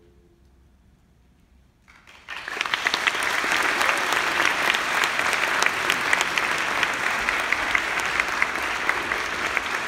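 Audience applause for a choir, starting suddenly about two seconds in and staying steady, just after the choir's last held chord fades away.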